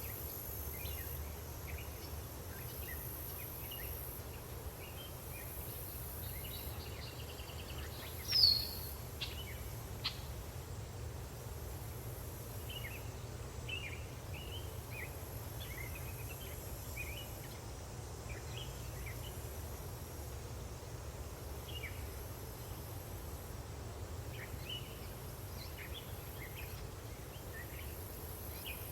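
Daytime countryside ambience from a sound-effects library: many small birds chirping, insects buzzing high in pulses that switch on and off every second or two, and a steady low distant rumble. One loud, falling chirp stands out about eight seconds in.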